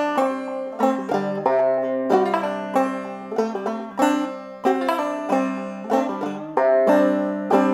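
Banjo played clawhammer style, a solo old-time tune in a steady run of quickly plucked, ringing notes.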